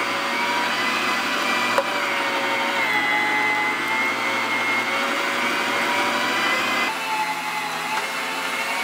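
Cuisinart electric meat grinder running steadily under load with a motor whine, grinding chunks of brisket trim and fat into mince. There is a single click about two seconds in.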